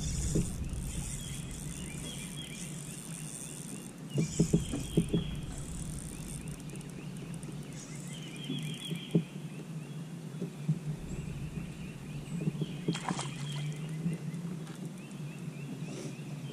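Outdoor ambience of birds chirping in short repeated trills, with a cluster of soft knocks about four seconds in and a couple of single clicks later.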